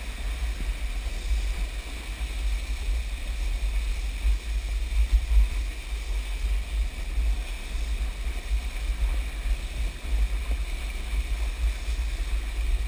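Wind buffeting the microphone of a camera being towed at speed behind a motorboat, with water rushing and hissing underneath. A steady rumble that never lets up.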